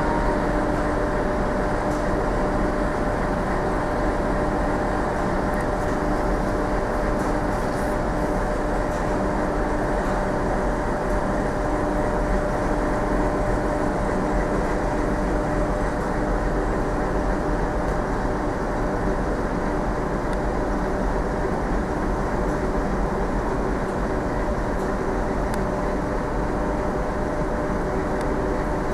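Steady hum and rumble of a EuroCity passenger train pulling slowly out of the station. The noise stays even throughout, with a faint constant tone in it and no wheel clicks.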